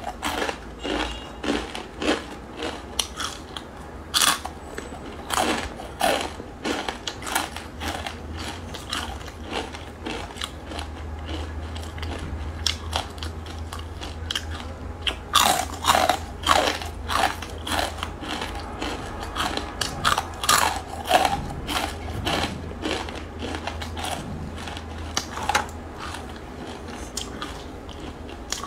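Close-miked biting and chewing of crispy fried ramen noodle rings: a run of irregular, sharp crunches, with denser clusters around the middle, over a faint steady low hum.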